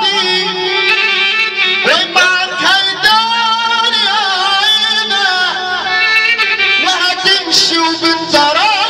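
A man singing an Egyptian shaabi song live into a handheld microphone, drawing out long notes with wavering, ornamented turns over Middle Eastern instrumental backing, all amplified through a sound system.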